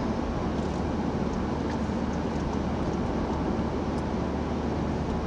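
Steady road noise inside a moving car's cabin: tyres on the asphalt and the engine's low drone, even throughout.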